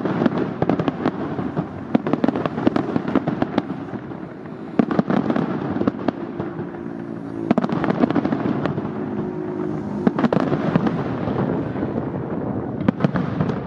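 Aerial fireworks display: a dense, continuous crackle of many small reports with sharper bangs scattered through, the loudest about five seconds in.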